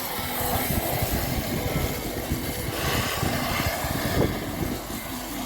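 Water from a pressurised hose spraying and splashing onto a dryer's blower parts, washing out packed lint, with a steady rushing noise.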